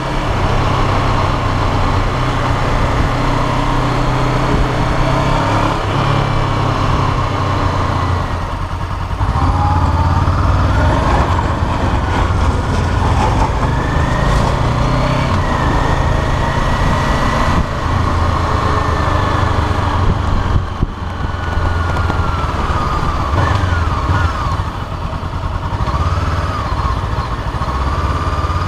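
Honda CBR500R's 471 cc parallel-twin engine running while riding, heard from the tank, its pitch rising and falling several times with the throttle, over steady wind and road noise.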